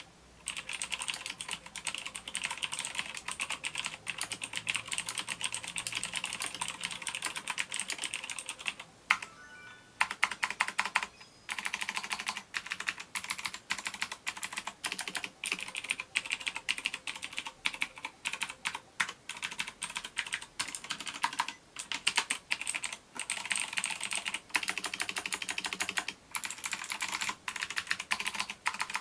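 Bifrend iMagic G-MASTER Custom LED mechanical keyboard with clicky blue switches being typed on: rapid two-handed typing for about nine seconds, a short pause, then slower, separate key presses made with one hand.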